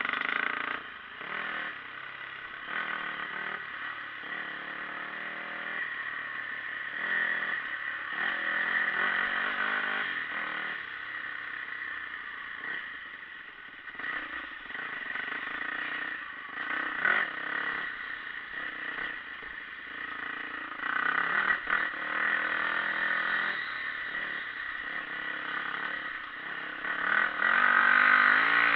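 Dirt bike engines running on the move, the engine note rising and falling with the throttle as they ride a sandy two-track. The engine sound is loudest near the end.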